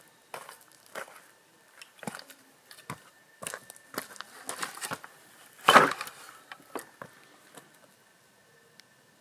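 Irregular crunching and rustling sounds, a few per second, with one louder crunch about six seconds in, dying away near the end.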